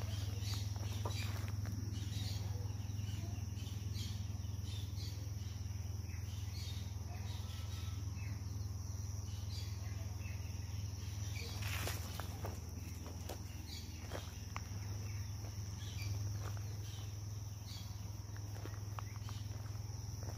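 Steady, high-pitched chorus of insects, with short bird chirps scattered through it over a low, steady rumble.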